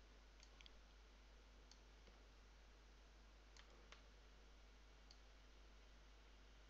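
Near silence with a handful of faint computer mouse clicks, spread irregularly.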